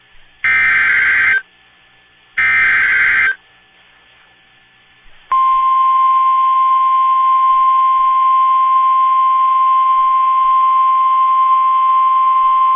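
NOAA Weather Radio emergency alert signal: two roughly one-second, evenly spaced screeches of SAME digital header data, then about five seconds in the steady 1050 Hz warning alarm tone starts and holds.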